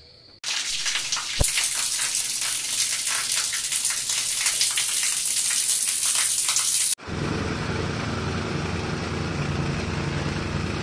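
Water spraying hard against a block wall, a steady loud hiss that cuts off suddenly about seven seconds in. It is followed by the steady running of a small petrol engine on a jumping-jack tamping rammer compacting soil.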